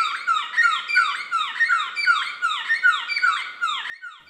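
A bird calling in a fast run of repeated downward-sliding notes, about three a second, stopping shortly before the end.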